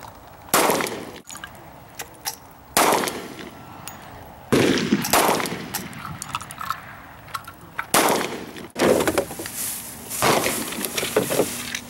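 Gunshots: five loud shots at irregular intervals, about one to three seconds apart, each followed by a ringing tail. Fainter shots from other shooters come in between.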